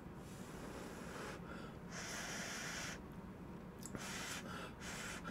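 Chapagetti noodles slurped in: one long slurp about two seconds in, then several short, quick slurps near the end.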